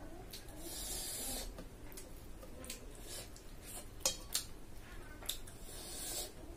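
Fingers mixing and scraping food on a steel plate while eating by hand, with a few sharp clicks and two stretches of rubbing, hissy scraping.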